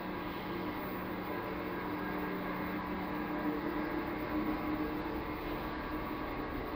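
Steady machinery hum: an even drone with a few constant tones in it that does not change.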